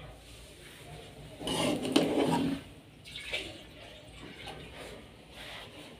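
Metal spoon turning cooked biryani rice in an aluminium pot: a soft scraping and rustling, loudest for about a second starting a second and a half in.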